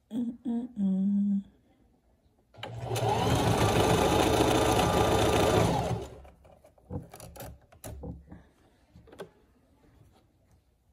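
Sewing machine running a steady stretch of stitching for about three and a half seconds, sewing a trim binding folded over the edge of stretch fabric. It is preceded by a couple of short hums near the start and followed by a few light clicks.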